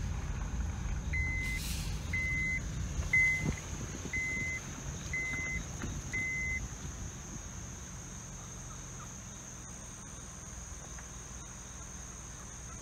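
A vehicle's warning chime beeping six times, about once a second, over a low rumble that dies away after the beeps stop.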